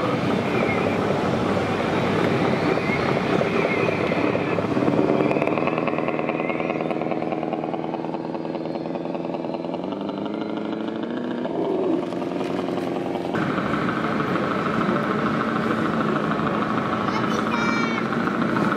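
A 1:14 scale RC semi truck's engine-sound module plays a diesel engine note that rises and falls in pitch as the truck drives, over the chatter of a crowded hall. The sound changes abruptly about 13 seconds in.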